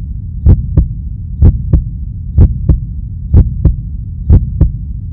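Heartbeat sound effect: paired thumps in a lub-dub rhythm about once a second, over a steady low hum.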